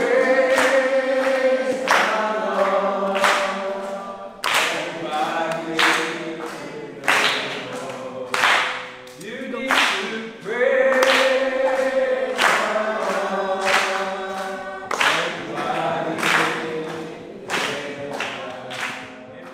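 A congregation singing a Christian song together without instruments, many voices in unison, with sharp hand claps about once a second.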